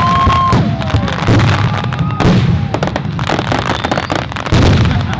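Fireworks show going off: a dense run of bangs and crackles over a low rumble, with a whistle near the start that falls in pitch.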